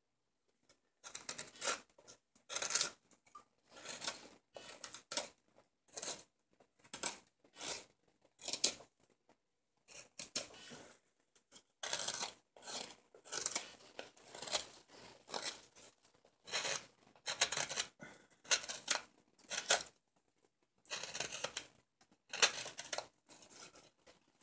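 Sloyd knife shaving cuts along the handle of a green silver birch ladle: a run of short, crisp slicing strokes, about one to two a second, with a brief pause about nine seconds in.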